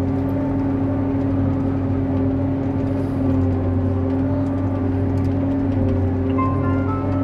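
John Deere 8800i self-propelled forage harvester running steadily under load while chopping grass, heard from inside the cab as an even drone.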